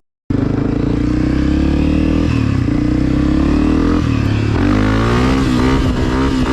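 Honda CRF250F dirt bike's single-cylinder four-stroke engine through a Pro Circuit exhaust, riding along. It cuts in suddenly a moment in, holds a fairly steady pitch, then rises and dips several times in the second half as the throttle is worked.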